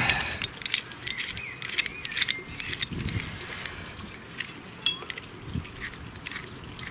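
Light metallic clicks and clinks of a spanner nipping up a spark plug in an old stationary engine's cylinder head, in scattered, irregular strokes.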